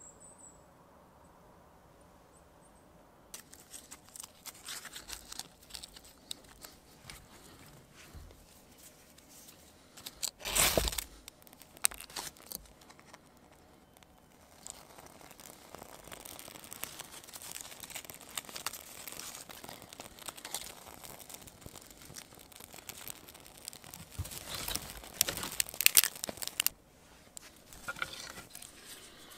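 Irregular rustling and crinkling from something being handled. It starts after a few quiet seconds, with a louder burst about ten seconds in and more loud peaks near the end.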